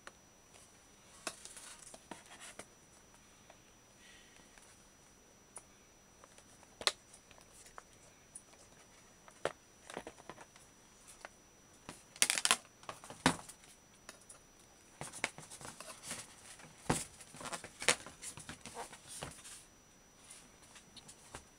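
Hard plastic snap-on case being pried off a MacBook Air 11-inch laptop: irregular sharp clicks and snaps as the clips release, with plastic scraping on the aluminium body. The loudest cluster of clicks comes a little past the middle.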